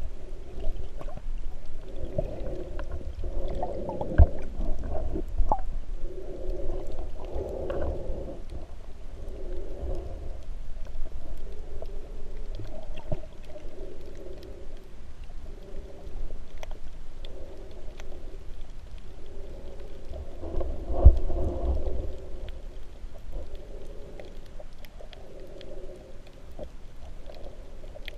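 Muffled underwater sound picked up through a GoPro housing: a low rumble of moving water with occasional knocks, the sharpest about four seconds in and near the middle. Over it a pair of hums pulses evenly about every second and a half.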